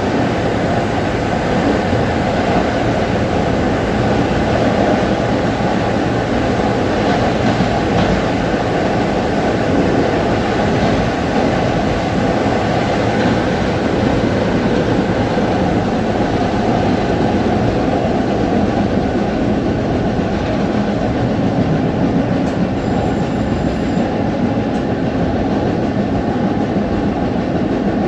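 LIRR M3 electric multiple-unit train running on the rails: a steady, loud rumble of wheels and running gear that stays even throughout.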